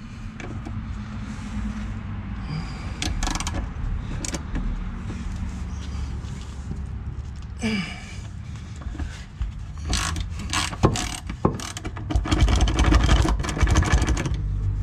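Ratchet wrench working a 12 mm shift-linkage bolt: scattered clicks and knocks as the socket is fitted and turned, then a quick run of ratchet clicks near the end, over a steady low hum.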